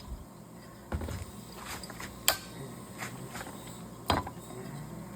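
Scattered sharp clicks and knocks of metal parts and hand tools being handled while the cylinder is taken off a Stihl MS 400 chainsaw, three of them standing out, about a second, two seconds and four seconds in.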